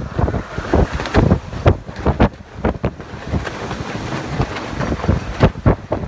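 Gusting wind of a summer storm squall buffeting the microphone in irregular blasts.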